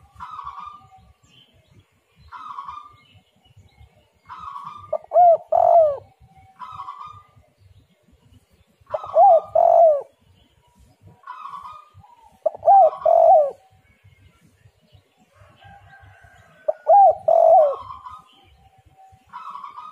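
Spotted dove (tekukur) cooing: four loud, repeated phrases of gliding coo notes about four seconds apart, with fainter, higher short notes between them.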